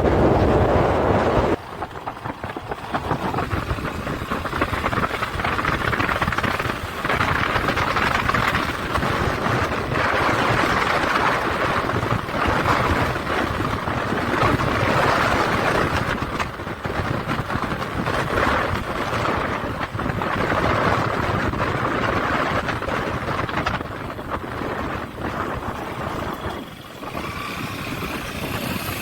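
Motorcycle engine running while riding, with wind rushing over the camera microphone; the level drops sharply about a second and a half in.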